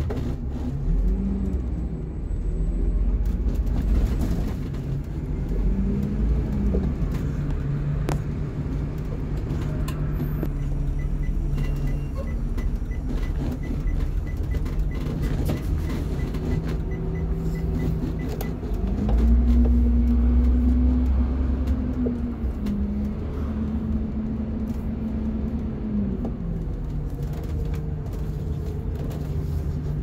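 Blue Bird RE CNG school bus heard from the driver's seat, moving slowly, its rear-mounted natural-gas engine running with a steady low hum and rumble. About two-thirds through, the engine note rises and grows louder, holds for several seconds, then drops back. A faint rapid ticking runs for several seconds in the middle.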